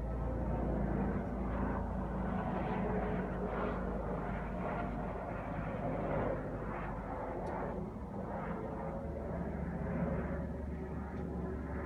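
Large helicopter circling overhead: a continuous rotor and engine rumble that swells and eases a little as it goes round.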